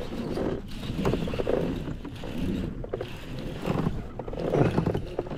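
Water lapping against the hull of a fishing kayak in irregular swells, with rustling from hands handling the rod and reel.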